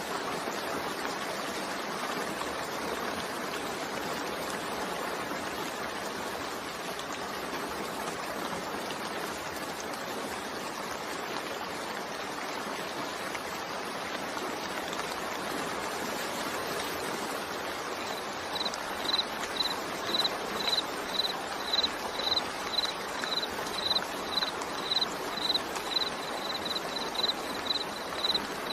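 Steady rainfall, an even hiss of falling water. About two-thirds of the way in, a high, regular chirping starts, about two chirps a second, louder than the rain.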